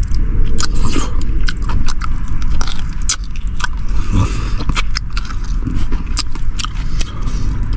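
Close-up chewing and gnawing on meat bones, with many short sharp cracks and crunches, over a steady low rumble.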